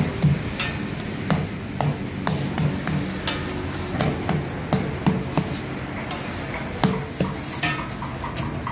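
Metal spatula clacking and scraping on a flat steel griddle while roti canai is pressed and turned, in irregular sharp knocks several times a second, over a steady low hum.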